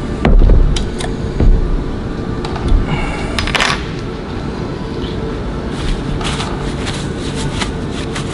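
Metal parts and a hex key being handled while a hex screw is fitted into a bow thruster's lower unit. Three heavy knocks in the first few seconds, then a brief high metallic ring with a sharp click, then lighter clicks, all over a steady low rumble.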